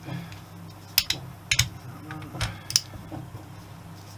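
A torque wrench and its socket worked on the cylinder head nuts of a Honda XL250S engine: several sharp metallic clicks at uneven intervals, the loudest about a second and a half in.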